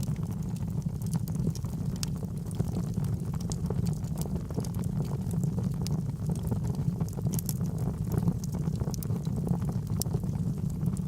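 Wood fire burning in a fireplace: a steady low rumble of the flames with sharp crackles and pops of burning logs scattered irregularly throughout.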